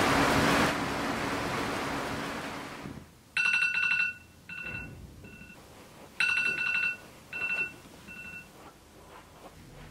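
Rain falling, fading out about three seconds in; then an electronic ringing tone sounds twice in the same pattern, each time a longer trill followed by two short beeps.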